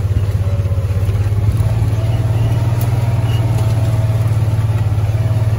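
Vehicle engine running steadily at low revs with an even low hum as the vehicle creeps along, heard from inside the cab.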